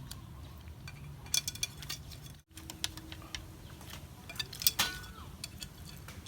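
Spoons clinking and scraping on plates as people eat: scattered light clicks, with clusters of sharper clinks about a second and a half in and again near five seconds, the loudest near five seconds.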